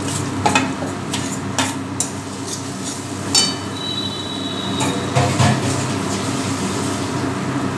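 A spatula scraping and knocking in a metal kadai as spice powders are stirred into frying onion-tomato masala, with a steady sizzle underneath.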